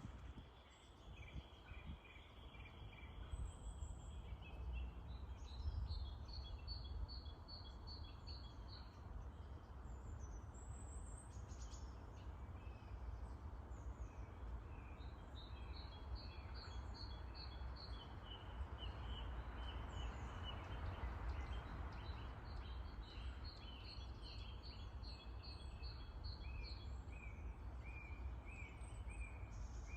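Songbirds singing: repeated runs of short, high notes from more than one bird, over a steady low rumble.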